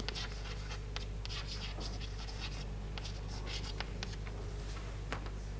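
Chalk scratching on a chalkboard in short strokes as a line of words is written, with a few sharp taps of the chalk, over a steady low hum.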